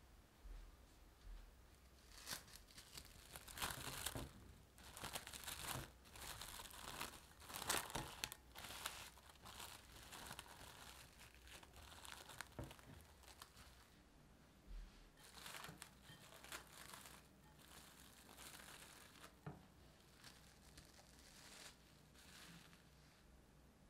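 Plastic cling wrap crinkling as it is pulled and stretched over a glass bowl of bread dough: irregular bursts of crackling for about ten seconds, then fainter rustles.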